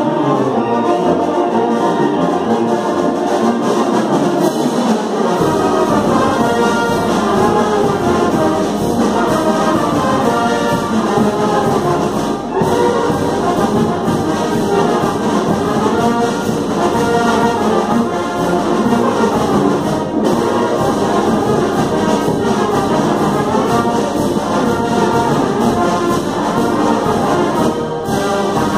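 A wind band of sousaphones, trumpets, clarinets and drums plays a traditional Oaxacan dance tune from the sones and jarabes repertoire. The low sousaphone line and a steady bass-drum beat come in about five seconds in.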